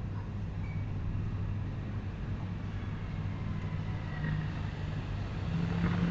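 A steady low hum under faint background noise, with a few faint short clicks near the end.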